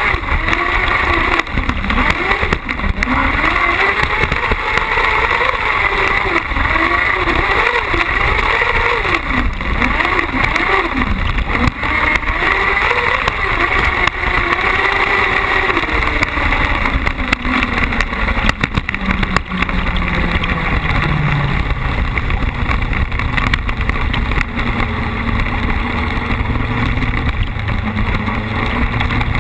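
Car-cross buggy's motorcycle engine at race pace on a dirt track, its pitch rising and falling repeatedly through the corners and gear changes in the first half, then holding steadier and lower, with short knocks throughout.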